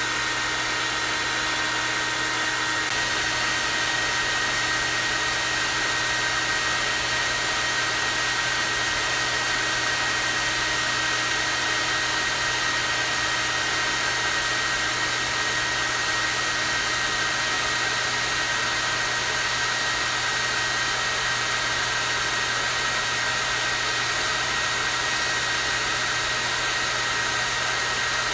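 Hair dryer running steadily on its high setting: a continuous rush of air with a high-pitched motor whine and a low hum underneath.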